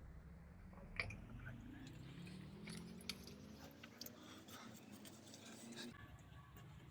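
Faint sounds of someone eating: chewing, with a few sharp clicks, the loudest about a second in. A faint hum rises slowly in pitch underneath and stops near the end.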